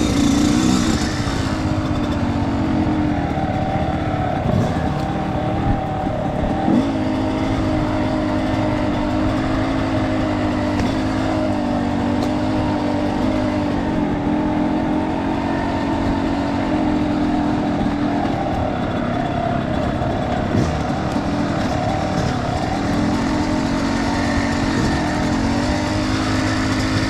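Dirt bike riding along a rough trail, its motor holding a fairly steady pitch with small rises and falls.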